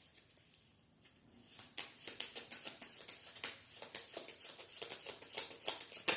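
Deck of spirit animal oracle cards being shuffled by hand: a quick run of light snaps and flicks of card against card, with a sharper snap just before the end.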